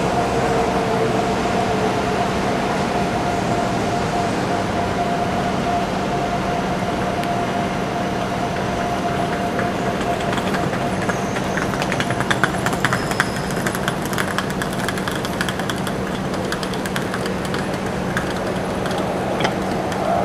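Steady city din on a busy pedestrian walkway, with a faint steady tone under it. From about halfway through, the footsteps of a group walking past, shoes clicking on the paving, stand out for several seconds.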